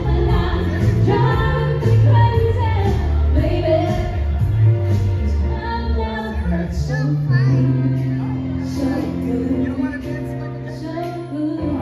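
Two women singing live into microphones over amplified backing music with a steady beat.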